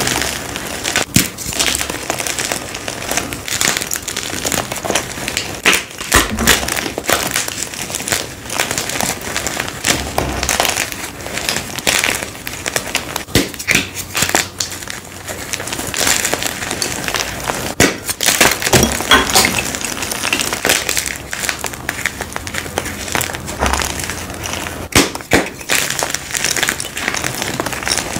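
Dyed gym chalk blocks crushed and crumbled in the hands: a dense, continuous crunching and crackling of chalk breaking up, with many sharp snaps as pieces break and grit is squeezed between the fingers.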